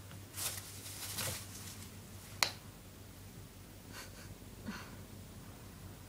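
Eclectus parrot playing with a soft toy ball on carpet: two short breathy rustles in the first second and a half, a single sharp click about two and a half seconds in, then a few faint taps.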